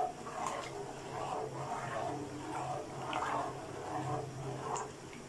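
A spoon stirring soaked basmati rice through a pot of water, sloshing in repeated strokes about twice a second.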